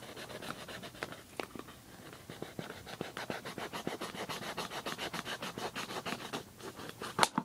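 Folding knife sawing through a plastic soda bottle: a rapid rhythmic scratching of back-and-forth strokes, several a second, with one sharper click near the end.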